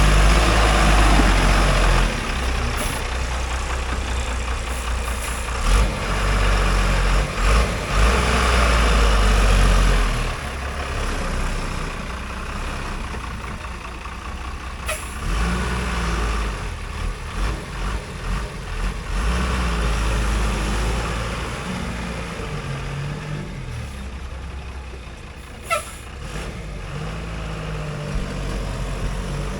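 JCB backhoe loader's diesel engine working under load, louder for roughly the first third and then running lower, with a few sharp knocks and clanks of the machine along the way.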